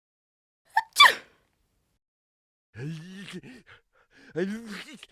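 Cartoon sneeze sound effects: one short, sharp sneeze about a second in, then longer, lower-pitched voiced sneeze effects in two groups over the last two seconds.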